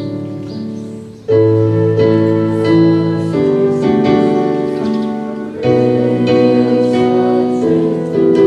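Keyboard playing slow, held piano chords, each ringing on and slowly fading, with a new chord struck about a second in, again about halfway through, and once more near the end.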